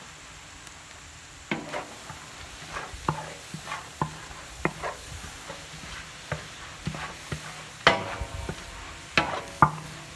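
Vegetables sizzling in a large metal pan while a metal spatula scrapes and clanks against the pan, stir-frying shredded cabbage and vegetables in sauce. The strokes begin about a second and a half in, come irregularly, and some ring briefly; the loudest fall near the end.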